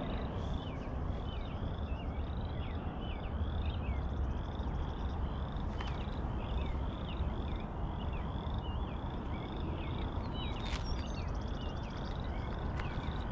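A chorus of frogs: many short, high peeping calls overlapping and repeating several times a second, over a low steady rumble.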